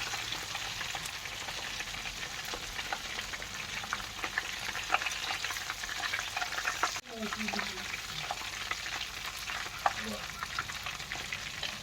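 Chicken pieces deep-frying in hot sunflower oil: a steady sizzle dotted with many small crackling pops.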